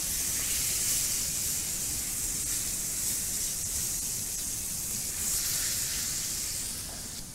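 Beef fillet searing in a very hot frying pan: a steady sizzle that eases a little near the end.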